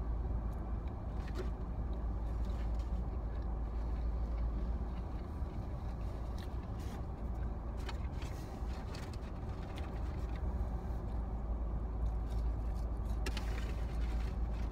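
Steady low rumble of a car, with scattered faint clicks and rustles over it.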